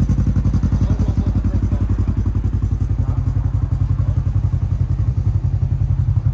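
Polaris RZR four-seat side-by-side's engine idling steadily: a low, even run of rapid exhaust pulses.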